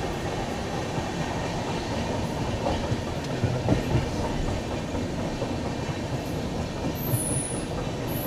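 Express passenger train running, heard from inside the coach: a steady rumble of wheels on the rails. A few sharp knocks come about three and a half seconds in, and a short high-pitched squeal near the end.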